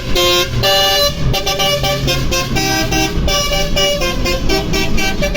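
Bus telolet horn playing a fast tune of short multi-tone notes, several a second, over the bus's low engine noise.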